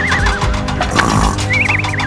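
Horse whinny sound effect, a high quavering call that falls in pitch, heard twice over background music with a steady low drone.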